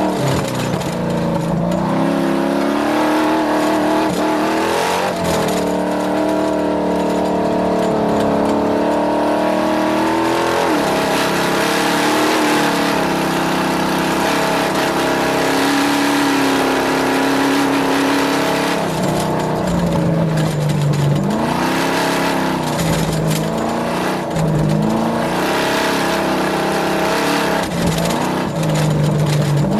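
Race car engine running hard and steady at high revs, its pitch wavering. The pitch drops about ten seconds in, then falls and rises again several times in the last third.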